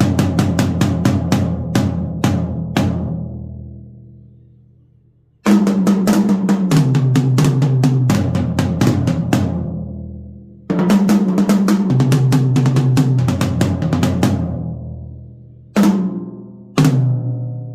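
Drum toms fitted with Evans Onyx heads played in three fast fills, each stepping down in pitch from the high tom to the lower toms and each left to ring out and fade. Two single hits come near the end.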